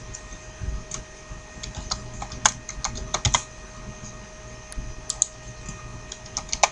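Computer keyboard keys being typed in short irregular bursts, entering a description for the ringtone, over a faint steady hum.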